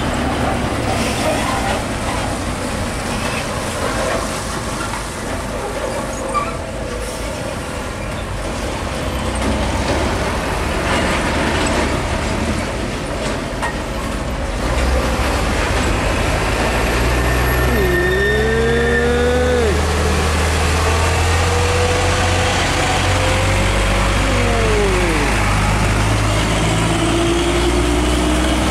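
Heavy diesel trucks running past on a road, a Hino 500 tractor-trailer and then an Isuzu Giga tank truck, with a deep engine rumble that grows louder about halfway through. About two-thirds in, a pitched squeal glides up and down a few times.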